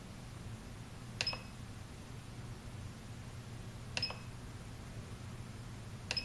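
Radio-control transmitter giving three short beeps a few seconds apart as its buttons are pressed, over a low steady hum.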